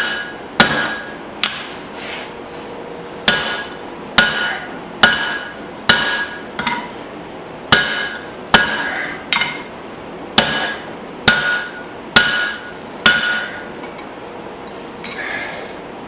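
Hand hammer blows on hot spring steel over an anvil, about one strike a second, each with a short metallic ring, shaping a forged hammer-hatchet head. The blows break off briefly about 2 s in and stop after about 13 s.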